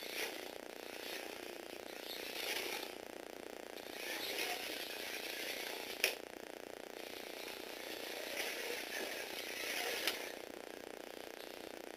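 Small Tomy Aero Spider gearbox motor and Lego Technic gear train of a remote-controlled Lego bicycle running, growing louder and softer in several surges as it drives. There is a sharp knock about six seconds in.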